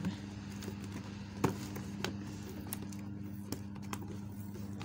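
Hands handling and prying open a cardboard toy box: a few sharp taps and clicks, the loudest about a second and a half in, over a steady low hum.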